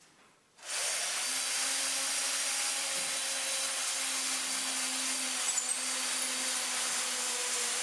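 Electric drill boring pilot holes for screws through a hardboard panel into the wooden frame, starting about a second in and then running steadily at an even speed.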